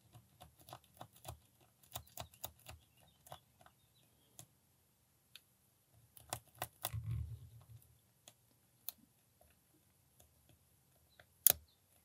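Small, irregular metallic clicks and ticks of a lock pick and tension wrench working the pin tumblers of a brass Brinks 30mm padlock, the pins still springy and not setting. A soft low bump about seven seconds in, and one sharper click near the end.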